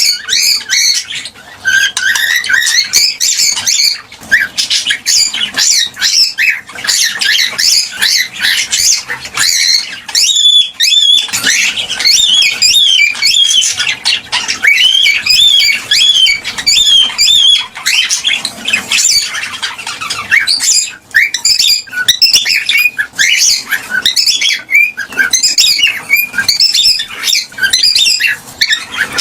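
Cockatiels chirping and squawking in a steady stream of short calls that bend up and down in pitch, many overlapping.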